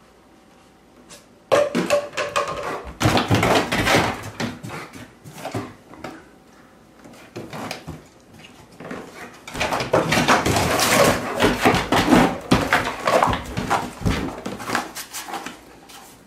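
A Bernese Mountain Dog shredding a cardboard box with its teeth: after a short quiet start, bursts of ripping and crunching cardboard come and go, with a long, busy stretch in the second half.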